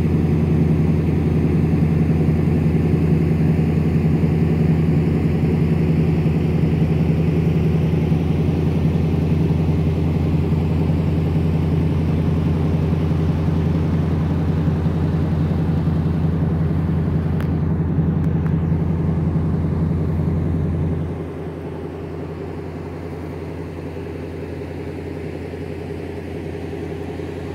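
Engine running steadily at a constant speed as the vehicle moves across a mowed field, becoming quieter about 21 seconds in without changing pitch.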